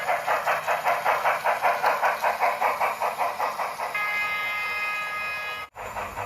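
Steam locomotive sound effect for a model Union Pacific Big Boy: rapid, even exhaust chuffs, about five a second. About four seconds in, a faint steady whistle-like chord joins them. The sound breaks off abruptly near the end.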